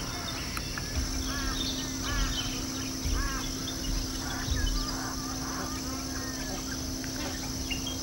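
A flock of waterbirds calling over and over, with short arched honking or quacking calls overlapping. A steady low hum runs underneath.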